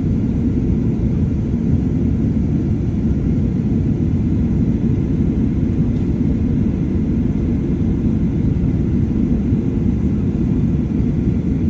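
Steady low rumble inside the cabin of a Boeing 737-800 as its CFM56-7B engines run at taxi power, with no change in pitch or level.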